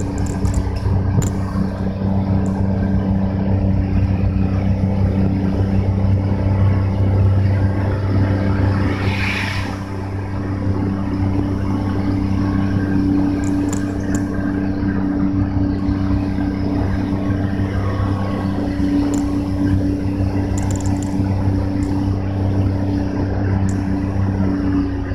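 Car driving along, with a steady engine hum and road noise. A brief rushing hiss comes about nine seconds in, and faint light ticks are scattered throughout.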